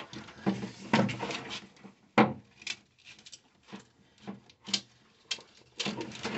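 Rubbing, scraping and light knocks of wiring being handled and fed down through a car's engine bay, with one sharp click about two seconds in.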